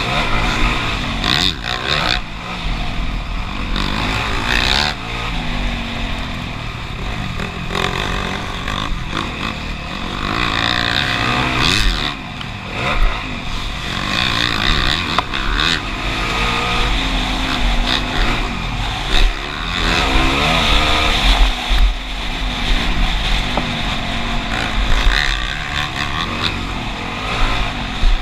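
Motocross motorcycle engine revving up and down, its pitch rising and falling as the throttle opens and closes, over a steady rush of noise with scattered sharp knocks.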